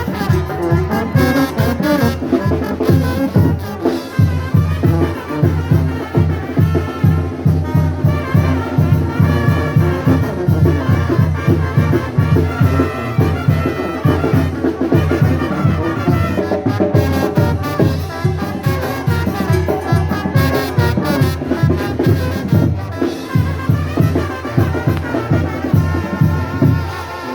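Brass band music, trumpets over a steady, quick bass beat.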